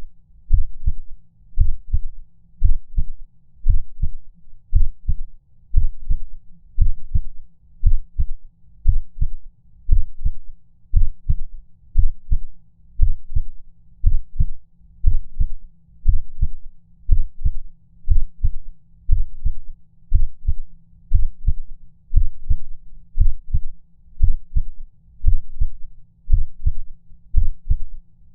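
Heartbeat sound effect: low double thumps (lub-dub), about one beat a second.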